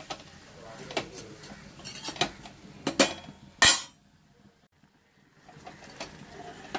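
A ladle knocking and scraping against an aluminium pressure cooker while chopped wax apple pieces are stirred: a few sharp clinks, the loudest about three and a half seconds in, then a brief drop to near silence.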